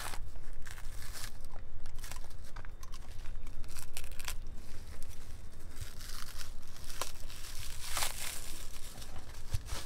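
Packing wrap being cut with a utility knife and torn off a bundle of hydraulic hoses: a run of short tearing, crinkling rasps, the loudest about eight seconds in.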